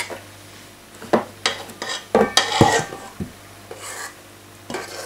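Metal spoon scraping and knocking against a stainless-steel mixing bowl as stiffly whipped cream is scooped out. The knocks come irregularly and are busiest and loudest about halfway through.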